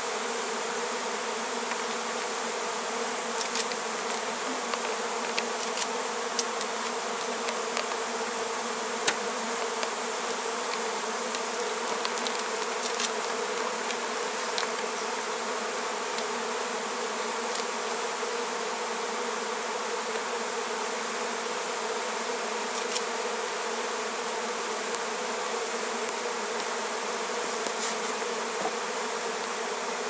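A colony of honeybees, its comb lifted out and handled, buzzing steadily in a dense hum, with a few light clicks scattered through.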